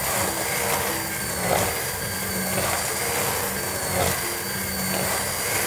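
Hand-held immersion blender running steadily, its motor humming as the blade purées cooked raspberries in a steel pot.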